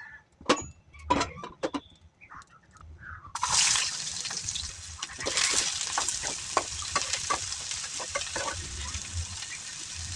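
A few sharp knocks of kitchen utensils, then, a little over three seconds in, a steady crackling hiss from the cooking pan starts suddenly.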